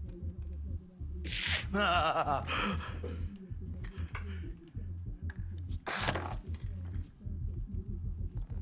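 Hard nasal snorts of crystal meth being sniffed up, a short one about a second and a half in and another about six seconds in. Between them comes a wavering, strained vocal groan. A low steady drone runs underneath.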